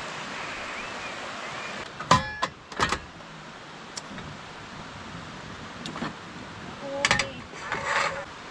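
Rushing stream water, then a string of sharp clicks as a portable butane camping stove's knob is turned to light it. Near the end come a couple of metal clanks with a short ring as a frying pan is set on the stove's grate.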